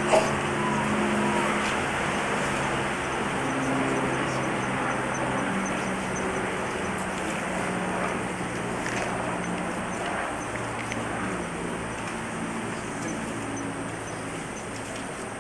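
Steady hiss and hall ambience of an old videotape recording, with a thin steady high whine and a faint low murmur of voices. A single sharp click sounds right at the start.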